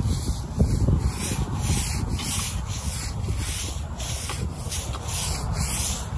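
Rhythmic brush strokes scrubbing a surface, about two strokes a second.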